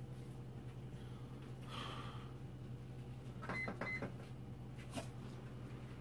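Two short, high electronic beeps, each with a click, a little past halfway through, then a single click about a second later, over a faint steady low hum.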